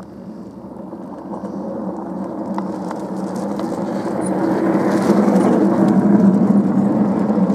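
Miniature railway locomotive and train passing close by. The running noise grows steadily louder as it approaches and is loudest as it goes past near the end.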